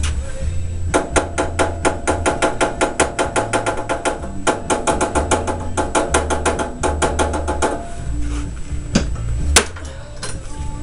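Screwdriver tapping rapidly on the carburetor of an 8 hp Briggs & Stratton engine, about seven metallic, ringing taps a second in two runs with a short pause between, then one sharper click near the end. The tapping is meant to free a sticky float that is letting the carburetor leak.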